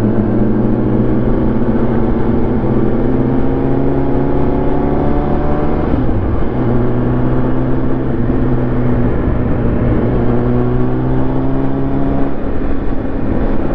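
Motorcycle engine of the rider's own superbike under way, its pitch climbing slowly and dipping briefly about six seconds in and again near the end, with wind rumble on the microphone.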